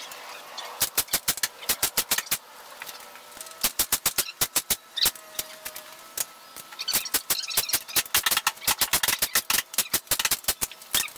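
Hand staple gun fired along a wooden screen door frame, fastening screen mesh: quick runs of sharp clicks, several a second, with short pauses between runs.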